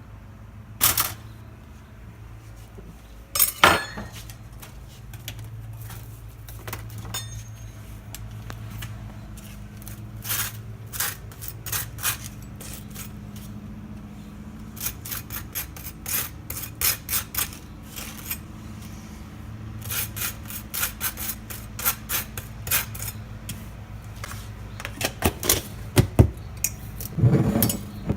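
Cutlery and crockery clinking and tapping while breakfast is prepared: a long series of short, sharp clicks and light knocks, some louder than others, over a steady low hum.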